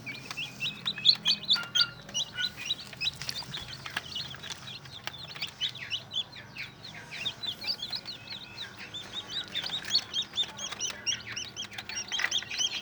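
Newly hatched ayam kampung super chicks peeping, many short high chirps overlapping without a break.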